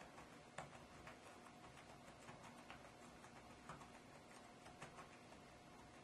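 Faint, irregular soft taps of fingers pressing the keys of a flexible rubber keyboard.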